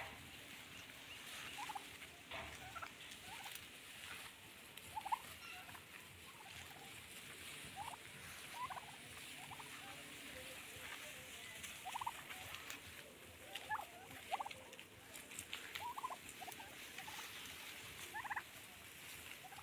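Domestic turkeys calling: short rising chirps, one every second or two.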